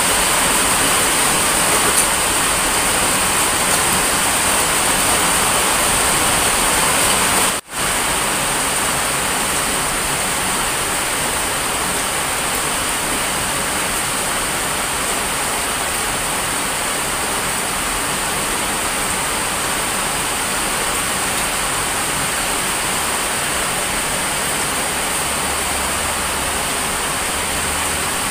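Heavy rain falling steadily, a constant dense hiss. It cuts out for a moment about eight seconds in, then carries on slightly quieter.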